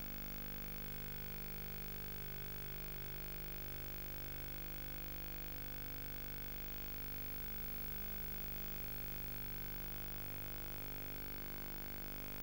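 Steady electrical hum with a faint even hiss and no programme sound: the noise floor of a Betamax tape transfer whose audio is missing.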